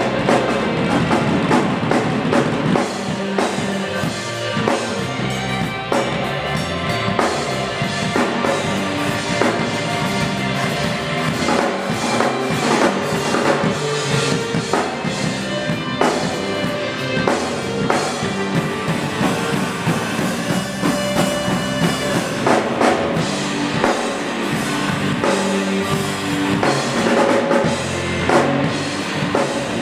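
Live band playing loud, with a drum kit to the fore: bass drum, snare and cymbals keeping time under sustained pitched instruments.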